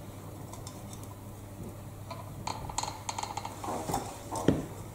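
Light clicks and ticks of a caulking gun being worked as silicone sealant is run along the bottom of a door's glazing, starting about two seconds in after a faint steady hum, with one sharper knock near the end.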